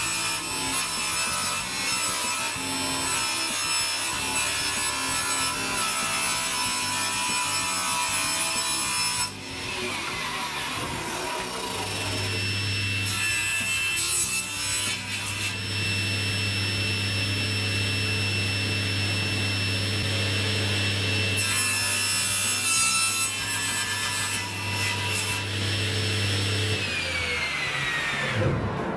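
Table saw running with a high whine while ripping long wooden boards: dense cutting noise for the first nine seconds or so and again about three-quarters of the way through. The whine drops in pitch as the saw winds down about a third of the way in and again near the end.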